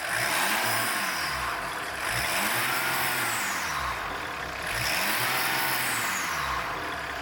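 Jeep Grand Cherokee's 3.0-litre diesel V6 revved up and let fall three times with the bonnet open. A faint high whistle rises and falls with the revs: the turbocharger whistling under throttle blips, a sign of a failing turbo.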